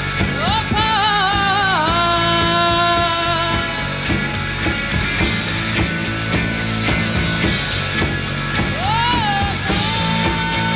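Live rock band playing: a woman's voice sings long sliding and held notes without clear words over electric guitars, bass and a steady drum beat.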